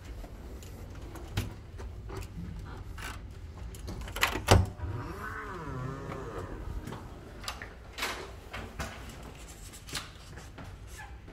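Hotel room door with an electronic key-card lock being unlocked and opened: a loud double clack of the lock and handle about four and a half seconds in, then a wavering creak as the door swings, and more knocks of the door and latch later on.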